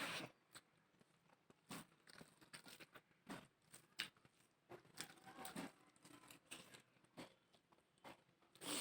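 A person eating, with faint intermittent chewing, soft crunching and small clicks.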